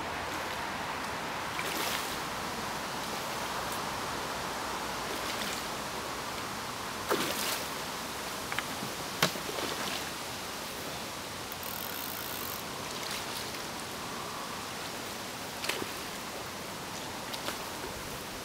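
Steady lakeside outdoor noise with a rustling, water-like hiss, broken by a few short sharp sounds, the loudest about halfway through.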